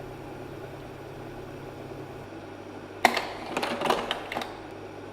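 Slide projector changing slides: a sharp mechanical clack about three seconds in, followed by a run of clattering clicks lasting about a second and a half, over the projector's steady hum.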